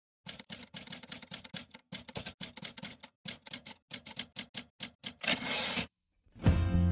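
Typewriter keystroke sound effect: rapid, irregular clacks for about five seconds, then a brief hiss of noise. After a short silence, music begins near the end.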